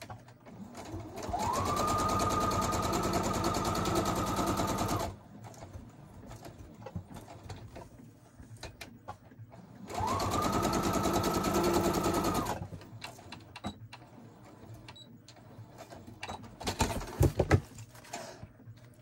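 Electric sewing machine stitching through paper in two runs of a few seconds each: the motor whine rises quickly to a steady pitch with the needle's rapid even stitching, then stops. Near the end, paper rustling and a few light clicks as the page is handled.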